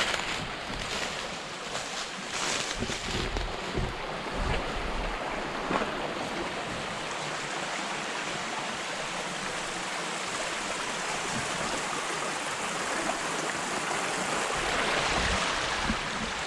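Flowing stream water rushing steadily, growing louder near the end. A few footsteps in the first few seconds.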